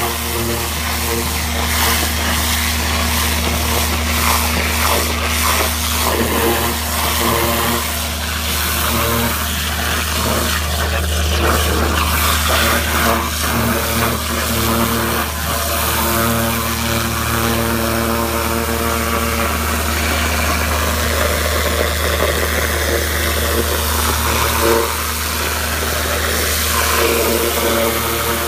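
Vermeer VX30-250 vacuum excavator running at a steady drone, with the hiss and crackling spatter of its high-pressure water lance cutting a trench through mulch and soil.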